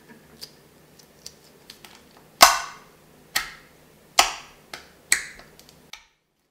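Fingers pressing and squishing clear, water-like slime made from hand soap and salt, giving wet clicks and pops. A few small clicks come first, then four louder sharp pops about a second apart.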